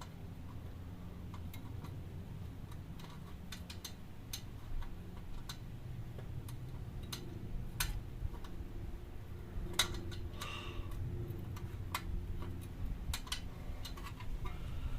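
Irregular light clicks and taps of a screw and hand tool against the motorcycle's exhaust heat shield fittings while the screw is being lined up with its hole, over a steady low rumble.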